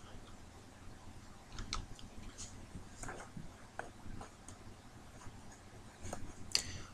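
Faint, irregular clicks and ticks, roughly one a second, over quiet room hiss.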